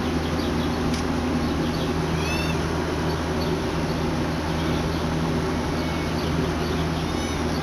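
A Siamese cat gives one short, high-pitched meow about two seconds in, over a steady low hum.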